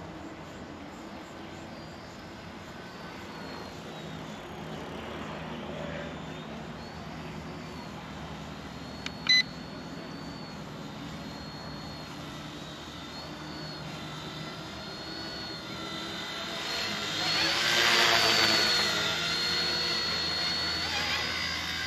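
Eachine E129 mini RC helicopter's electric motor and rotors whining in flight, the pitch wavering up and down with the throttle. The whine swells louder for a few seconds near the end as the helicopter comes close. A short, sharp beep sounds about nine seconds in.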